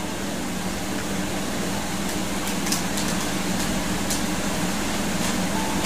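Steady low mechanical hum, with a few faint light clicks over it.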